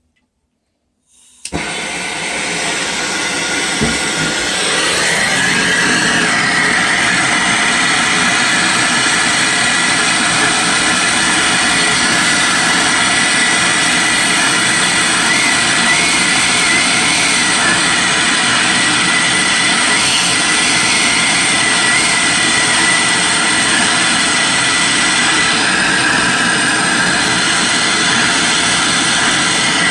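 Handheld gas torch lit about a second and a half in, then burning with a steady loud hiss, used to heat a copper pipe joint for soldering.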